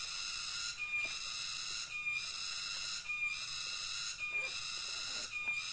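Night-time insect chorus: a steady high buzzing that breaks off briefly about once a second, each stretch starting with a short higher note.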